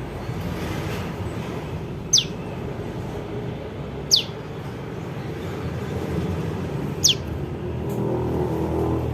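Young prenjak lumut calling: three short, sharp notes, each falling steeply in pitch, spaced two to three seconds apart, over a steady low rumble.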